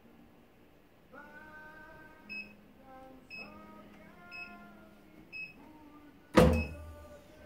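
Heat press timer beeping four times, once a second, as its countdown runs out, then a loud clunk as the clamshell press is released open, over faint background music.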